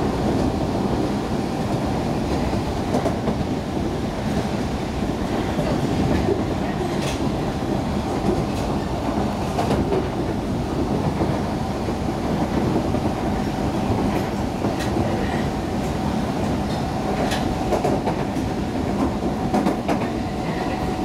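Train car running along the rails, heard from inside: a steady rumble with a faint steady whine and scattered clicks from the track.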